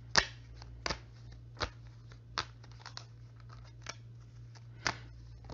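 Tarot cards being shuffled by hand: a series of sharp card snaps, roughly one a second, over a faint low steady hum.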